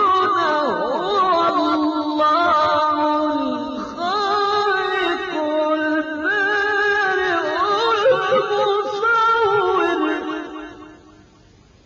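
A man's voice reciting the Quran in a melodic, chanted style, with long held notes that waver and bend in ornamented runs. The voice fades out about a second before the end, leaving faint hiss.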